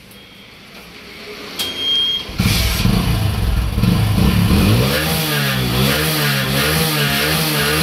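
Hero Splendor Pro's single-cylinder four-stroke engine starting about two seconds in, then revved in several quick throttle blips before settling to idle. The engine is burning oil and smokes heavily from the silencer.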